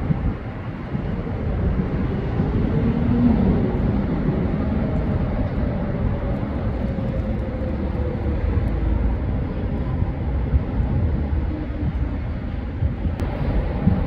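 Steady city traffic rumble with wind on the microphone. Through the middle a faint engine hum falls slowly in pitch as something passes.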